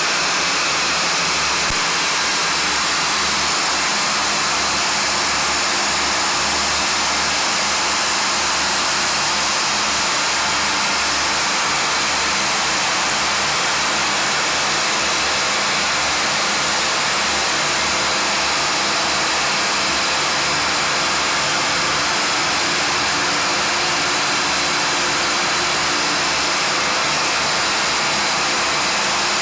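Yarn twisting machine running steadily, its spindles giving an even whirring hiss with a faint steady hum beneath.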